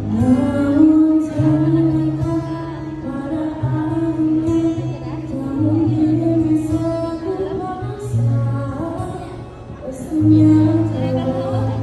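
A woman singing into a microphone, accompanied by an acoustic guitar, the two amplified through a PA speaker. The voice pauses briefly between phrases about three-quarters of the way through, then comes back in.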